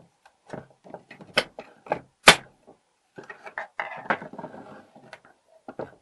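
Old mortise door lock being handled: a run of short metal clicks and knocks as the steel lock case is turned over and its loosened cover plate worked free. The sharpest knock comes a little past two seconds in.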